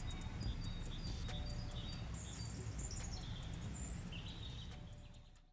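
Outdoor lakeside ambience: small birds chirping and trilling over a steady low rumble, fading out near the end.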